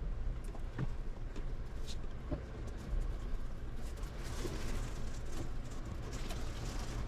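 Ford Bronco driving slowly over a rough trail: a steady low rumble with scattered knocks and clicks, and a hissing scrape from about four seconds in.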